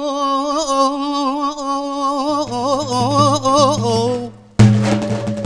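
A man singing a Kurdish folk song, holding long wavering notes with ornaments. About four and a half seconds in, after a brief drop, a loud drum stroke brings the accompaniment back in.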